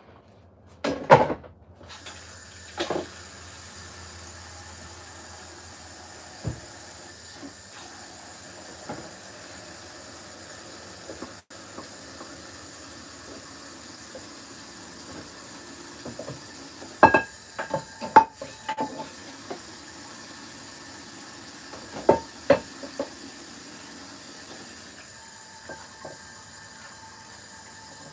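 Kitchen tap running steadily into a sink from about two seconds in, while dishes and a frying pan are washed. Short clinks and clatters of dishware come now and then, the loudest a cluster about two-thirds of the way through.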